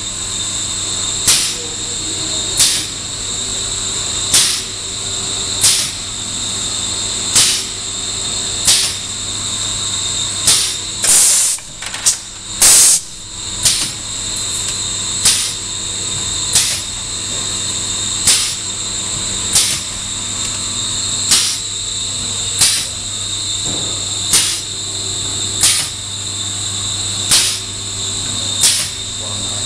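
Errepi Vittoria 1600 automatic label-roll machine running with a steady hum and a high whine. A short, sharp hiss-like burst comes about every one and a half seconds, and two louder bursts come a little after the middle.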